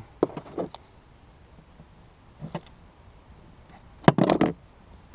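Handling of wire connectors and a crimping tool: a few light clicks near the start and again about two and a half seconds in, then a louder clatter of the crimper being picked up against the hull about four seconds in.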